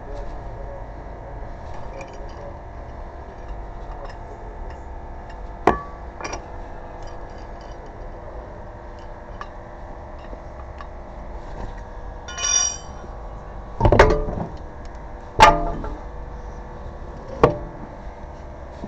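Metal tools clinking and clanking during a car tire change: a handful of separate sharp knocks, the loudest two about two-thirds of the way through, with a short ringing metallic tone just before them, over a steady low rumble.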